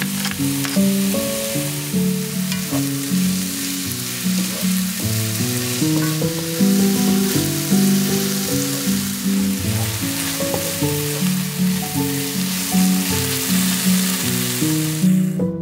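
Diced tomato, celery and onion sizzling as they fry in a pan, stirred now and then with faint clicks; the sizzle cuts off suddenly just before the end. Background music plays throughout.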